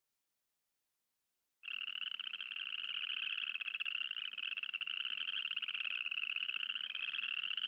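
Western chorus frogs calling, several overlapping rapid trills like fingers run along a comb's teeth, starting about two seconds in after a moment of silence.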